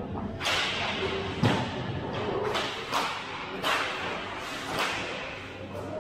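Hockey skate blades scraping the ice in a run of quick strides, a sharp swish about every half second to second, with a heavier thump about one and a half seconds in.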